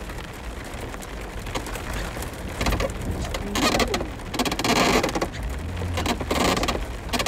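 Rain and tyres on a wet gravel road heard from inside a slowly moving vehicle, over a low rumble. Three louder rushing surges of noise, each about half a second long, come in the second half.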